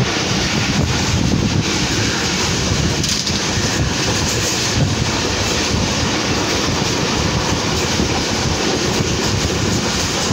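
Pakistan Railways passenger train running along the track: a steady rumble with a light rattle of the wheels over the rails, heard from an open window at the front of the train.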